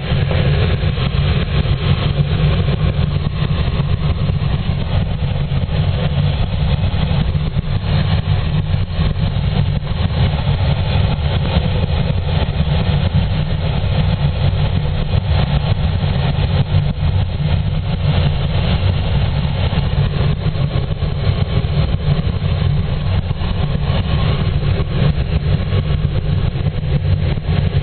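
Steady low rumble of airflow over a glider's canopy and cockpit in flight, heard from inside the cockpit.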